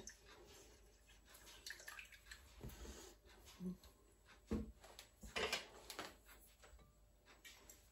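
Faint, scattered taps and short scrapes of a spoon against a bowl and pan as grated lemon rind is added to the lemon filling.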